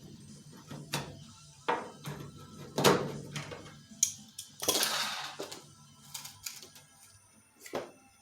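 Irregular metallic clicks and clanks of hand tools setting solid rivets in an aircraft wing spar, done by hand because the pneumatic rivet squeezer won't fit, with a short scraping rasp about five seconds in.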